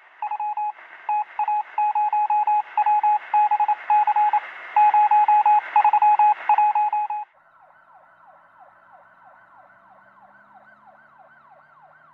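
Electronic beeping sound effect: short beeps at one pitch in quick, irregular runs, like Morse code, over a hiss. About seven seconds in, the beeps stop and give way to a quieter series of repeated falling sweeps, about three a second.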